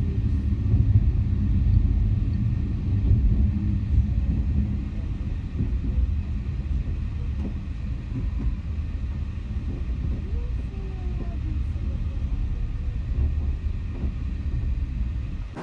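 Passenger train running on its rails, heard from inside the carriage as a steady low rumble.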